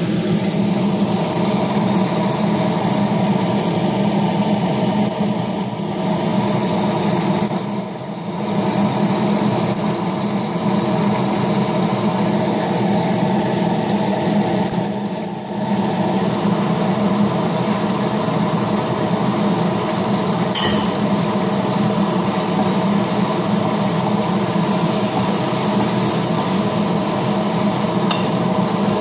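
Kitchen range hood extractor fan running with a steady hum. A couple of brief knocks, the last as the pot is stirred with a wooden spatula near the end.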